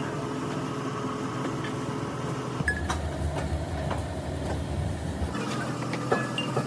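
Steady mechanical hum of running workshop machinery, with scattered sharp metallic clicks and knocks over it.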